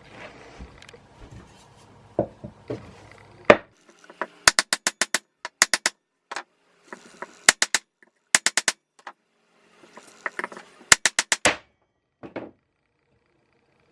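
Bursts of sharp, rapid clicks or taps, about five to seven at a time at roughly ten a second, repeated five times, after a few softer knocks: hand-tool work on the bandsaw's wheel and bushings.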